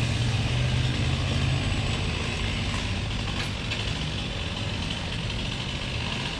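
A heavy engine idling with a steady low hum, easing slightly about a second and a half in.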